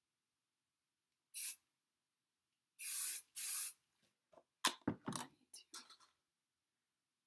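Aerosol hairspray can spraying in hisses: one short spray about a second and a half in, then two longer sprays back to back around three seconds. A quick run of sharp knocks and clatters follows near the end.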